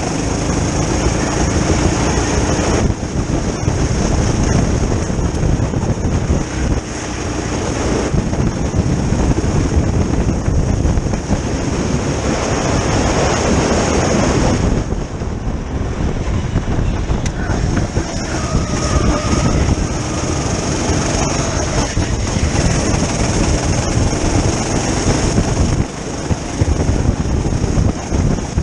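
Onboard sound of a go-kart at racing speed: the kart's engine running hard under heavy wind rush on the microphone. The sound eases briefly about halfway through before picking up again.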